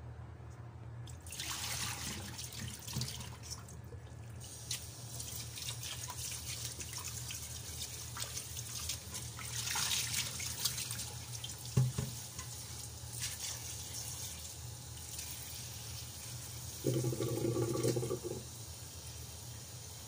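Tap water running and splashing into a stainless steel pot in a steel kitchen sink as hands rinse soaked spiny sea cucumbers, changing their soaking water. A single knock comes just past the middle, and a brief low hum near the end.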